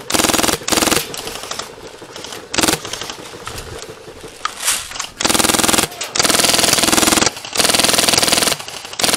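Airsoft M60 firing a string of full-auto bursts, each a rapid even rattle lasting from a fraction of a second to over a second, with short pauses between.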